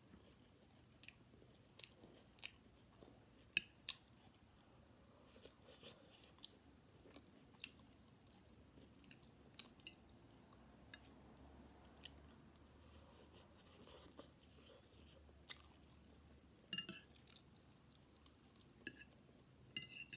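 Close-up chewing of stir-fried chicken chow mein noodles and vegetables: quiet, wet mouth sounds with scattered sharp clicks, the loudest about three and a half seconds in, some of them from a metal fork tapping and scraping the ceramic plate while picking up noodles.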